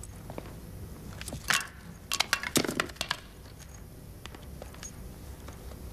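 Small objects from a woman's handbag knocking and clinking as they are taken out and set down. There is a quick run of sharp clinks and knocks from about a second and a half to three seconds in, then a few faint ticks.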